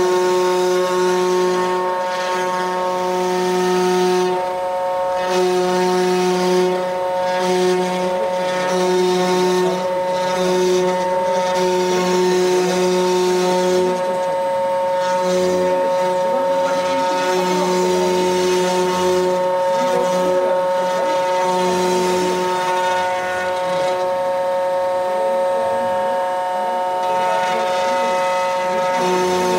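CNC wood router running: a steady machine whine of several stacked tones over a rushing noise, with a lower hum that cuts in and out every second or two.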